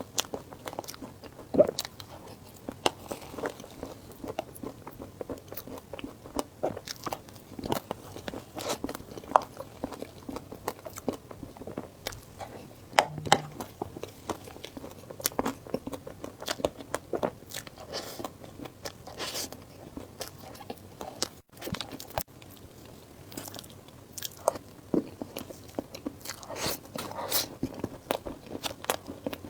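Close-miked eating sounds: a person biting and chewing food, with many short crunchy clicks coming irregularly.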